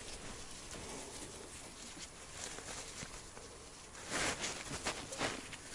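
Faint steady outdoor background noise, with a few short rustling noises about four seconds in.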